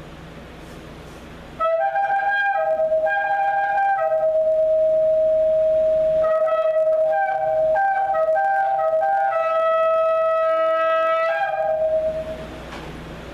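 Shofar blown in one long blast of about eleven seconds, starting a couple of seconds in. Its note flips up and back between two pitches a few times before it fades away.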